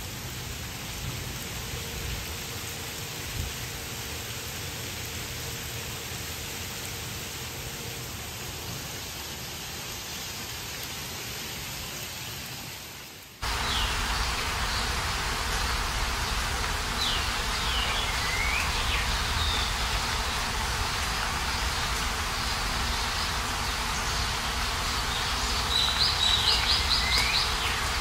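Steady hiss of rain and hail falling on wet pavement. After an abrupt cut about halfway through, a louder rain-like hiss with birds chirping in short high calls, including a quick trill near the end.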